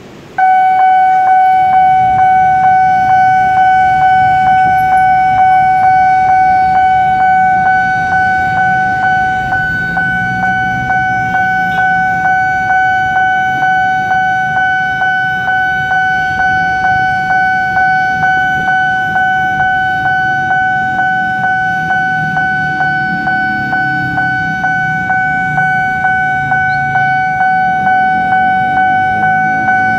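Railway level-crossing warning alarm starting suddenly about half a second in: a loud, steady electronic tone pulsing in quick, even beats, sounding as the crossing barriers come down for an approaching train. Road traffic rumbles underneath.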